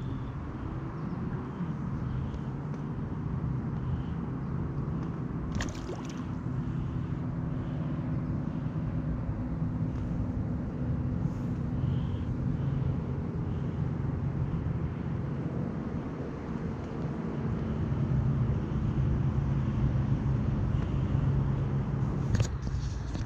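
A steady, low mechanical hum made of several held tones, one of them rising a little about a second in, with a couple of short clicks.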